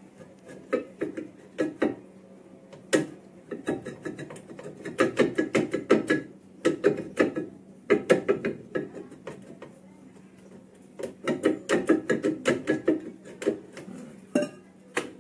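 Quick runs of metal clicking and tapping, several strikes a second in groups with short pauses between, from work on fitting a van's rear brake drum over the drum-brake shoes.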